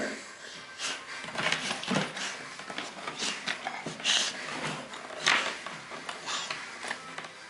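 Bull terrier puppy making short, breathy snuffling noises in irregular bursts.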